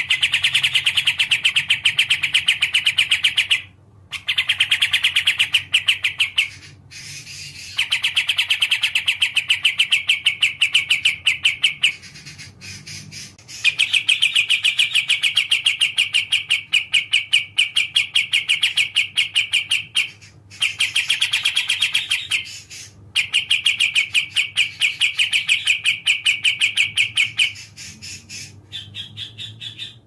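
Kapas tembak songbird singing a very fast, repeated chattering trill in long runs of several seconds, broken by brief pauses, with softer notes near the end.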